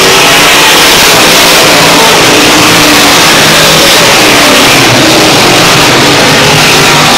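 Dirt modified race cars' engines running at full throttle as they pass, loud and steady, with engine notes rising and falling as cars go by.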